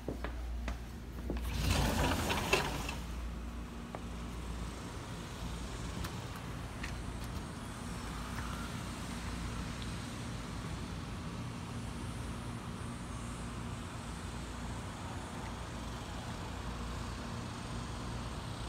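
A brief loud rushing noise about two seconds in, then a steady outdoor hum of distant traffic.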